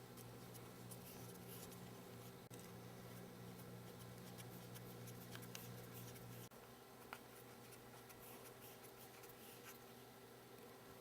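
Near silence with faint small scratches and light clicks: a precision screwdriver driving the tiny screws that hold the iPhone 3GS logic board. A low steady hum underneath cuts off about two-thirds of the way through.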